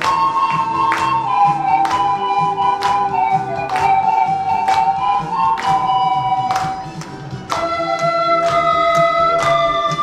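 Pan flute ensemble playing a slow melody of long held notes in unison over a backing track with a steady beat of about one strike a second; the melody breaks off briefly about seven seconds in and a new phrase begins.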